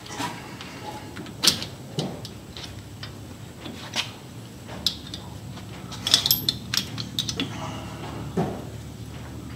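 Small metal clinks and knocks of new sway bar end link hardware (bolt, cup washers, rubber bushings, spacer tube) being handled and fitted by hand at a truck's sway bar. The clinks come irregularly, with a quick cluster about six seconds in.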